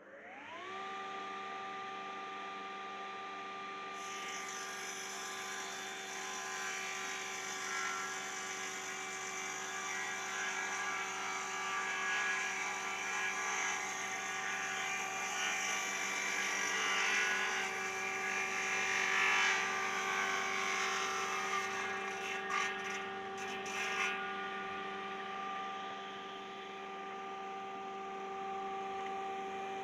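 BELMASH SDMR-2500MAX combination woodworking machine starting up with a quick rising whine, then running steadily. From about 4 s in a board is ripped lengthwise on its circular saw, adding a loud cutting noise with a few sharp knocks near the end of the cut. After that the blade spins free again.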